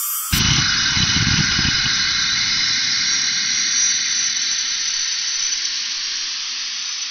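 Synthesized metallic noise from the AdaptiveNotchComb software synthesizer (serial comb filters with adaptive notch filters), played back in a demo track. A sudden loud, noisy hit comes in about a third of a second in, with a low rumble beneath that dies away, and the whole sound fades slowly.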